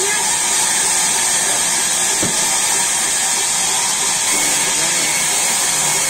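A steady, high hiss of machinery running, unbroken throughout, with faint voices over it.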